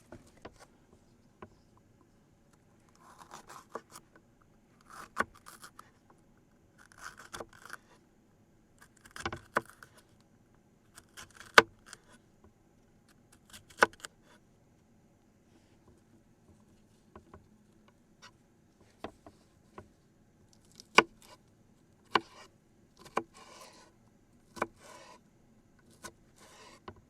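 Knife cutting a bell pepper on a cutting board: sharp taps of the blade on the board every second or two, some with a short crisp cutting or scraping sound just before them.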